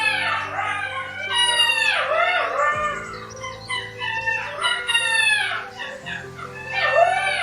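An animal calling over and over, short cries that rise and then fall in pitch, over background music with held low notes.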